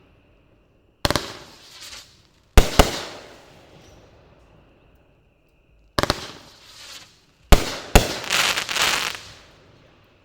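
Skysong 'Lawless' 24-shot, 500-gram firework cake firing: six sharp bangs at uneven intervals, two of them in quick pairs, each trailing off over about a second.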